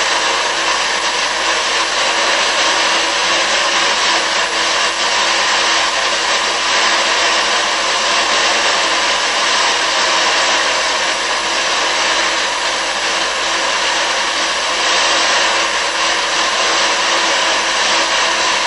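A loud, steady rushing noise with a faint hum underneath, starting and stopping abruptly.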